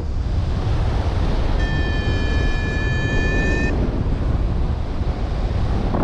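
Heavy wind noise on the microphone from airflow in paraglider flight. About a second and a half in, a steady electronic tone from a flight variometer sounds for about two seconds, then stops.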